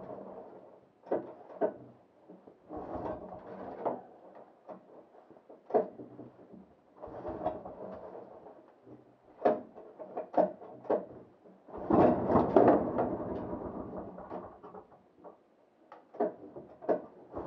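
A vintage Polaris Mustang snowmobile's two-stroke engine being pull-started cold: four rope pulls about four seconds apart turn it over without it catching, the fourth pull the loudest. Sharp clicks and knocks of the machine being handled fall between the pulls.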